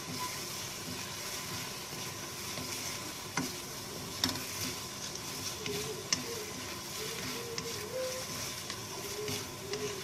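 Diced potatoes and tomatoes sizzling in oil in a frying pan over high heat, a steady frying hiss, with a few sharp clicks as the mixture is stirred.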